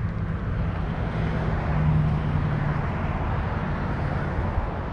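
An engine drone with a steady low hum, swelling about two seconds in and then easing off, as of a motor passing by.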